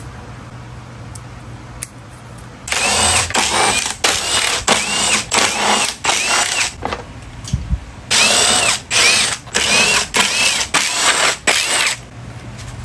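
Handheld electric power tool run in about a dozen short trigger pulls, in two runs with a pause of about a second between them. The motor's whine rises and falls with each pull.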